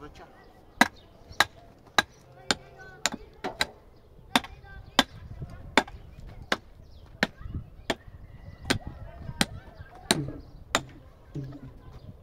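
Hand tool striking over and over: about seventeen sharp blows at a steady working pace, roughly one every two-thirds of a second.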